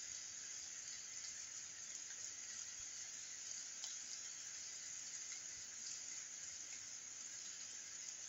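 Steady rain falling on a wet street: a faint, even hiss.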